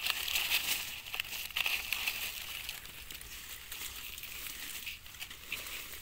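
Dry fallen leaves crackling and rustling as a hand digs through the leaf litter and pulls up a small mushroom. The crackling is busiest in the first two seconds, then softer.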